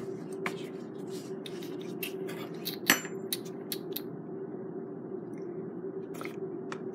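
Metal spoon and whisk clinking against a stainless steel mixing bowl in a series of short, sharp clinks, the loudest about three seconds in, over a steady low hum.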